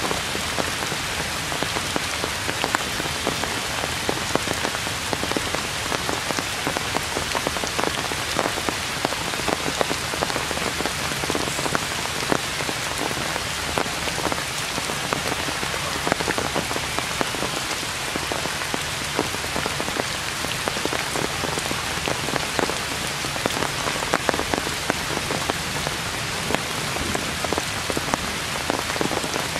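Heavy rain falling steadily: an even hiss full of many small drop taps.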